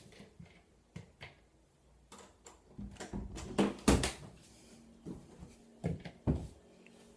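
A scattering of knocks and clunks from things being handled in a small room, the loudest cluster about four seconds in and two more near the end.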